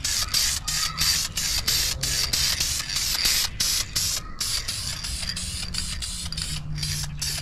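Aerosol spray can of Duplicolor vinyl and fabric coating hissing in quick short bursts, about four a second, with a couple of brief pauses, laying down a light coat of paint.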